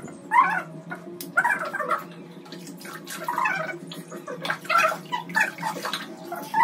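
A young child whimpering and crying in short, repeated bursts while water is poured over his head during a hair rinse, with water splashing over a steady low drone.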